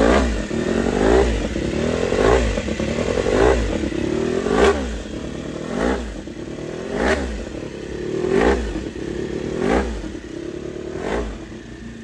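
Honda RC213V-S 999 cc V4 engine on its first run, the throttle blipped about ten times, roughly once a second. Each rev rises sharply and drops back, and near the end the engine settles to idle.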